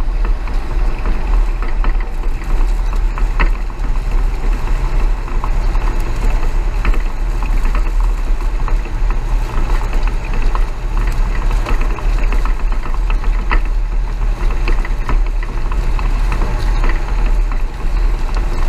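Truck engine running with a steady, deep low rumble and a few light rattles over it.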